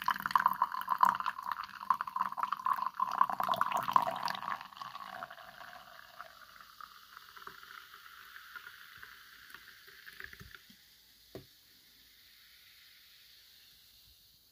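Carbonated energy drink poured from a can into a glass tumbler: a loud splashing pour for about the first four seconds as the glass fills. It then quiets to a thinner stream and fizzing foam, fading out by about ten seconds.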